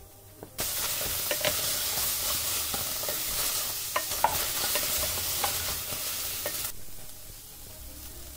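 Whole okra pods frying in hot oil in an aluminium pot, sizzling steadily, with a wooden spatula stirring and knocking against the pot in scattered clicks. The sizzle starts suddenly just after half a second in and cuts off abruptly about a second before the end.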